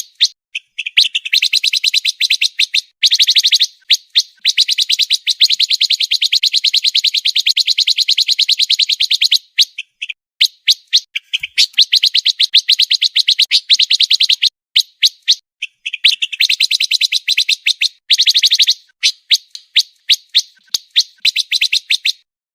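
Pancawarna songbird singing a fast, dense trilling song. Long runs of rapid, evenly repeated high notes last two to five seconds each, with short pauses filled by scattered single notes between them.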